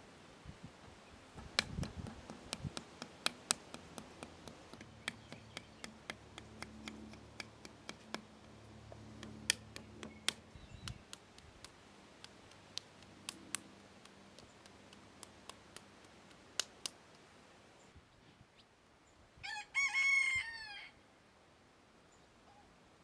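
A rooster crows once, loudly, near the end: a single call of about a second and a half that drops in pitch as it ends. Before it come scattered sharp clicks and a faint low hum.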